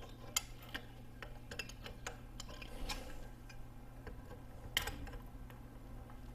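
Light metal clicks and taps of hand tools and engine parts being handled at a motorcycle engine's clutch, with a sharper click about half a second in and another near five seconds. A steady low hum runs underneath.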